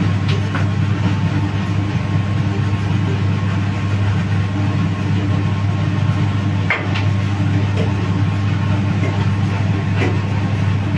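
Steady low mechanical hum from a machine running, with a few faint light clicks, one about seven seconds in.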